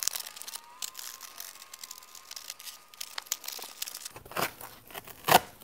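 Layered Kaizen foam crackling and tearing as cut layers are pulled free from the tool box insert, with a couple of louder crackles near the end.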